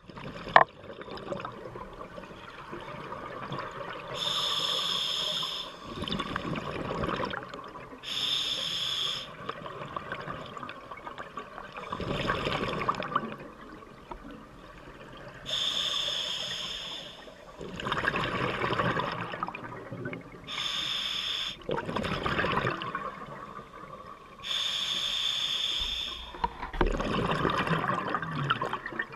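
Scuba regulator breathing: a diver inhales through the regulator with a hiss and faint whistle, then exhales a rush of bubbles, about five breaths at roughly five-second intervals.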